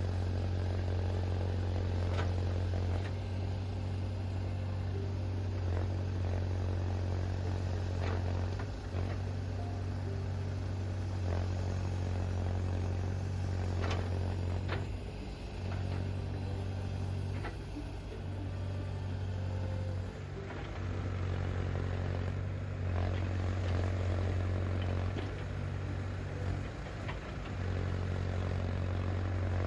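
Tractor engine running steadily at a constant speed, with a few sharp knocks and clatter over it.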